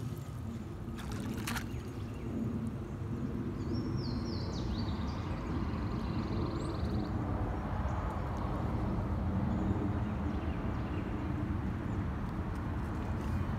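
Steady low outdoor rumble, with a bird calling once about four seconds in: a few quick falling notes and then a dry, even trill lasting about two seconds. A brief rustle comes about a second in.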